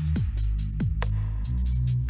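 Background electronic dance music with a heavy bass line and a steady drum beat.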